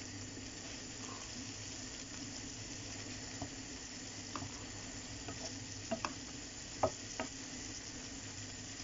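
Spinach, onion and coconut sizzling steadily in a non-stick frying pan as a wooden spatula stirs them, with a few light clicks and scrapes of the spatula against the pan, mostly in the second half.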